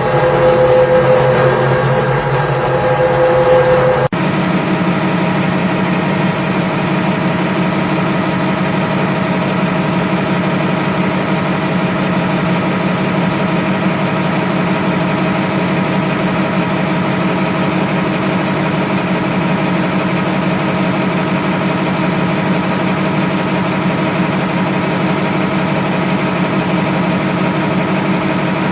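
Engine idling steadily, an even hum with a strong low tone. It starts with an abrupt cut about four seconds in, replacing a different, higher-pitched engine sound.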